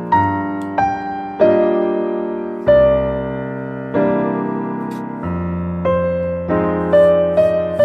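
Background piano music: chords struck about once a second, each ringing and fading, with a few quicker notes near the end.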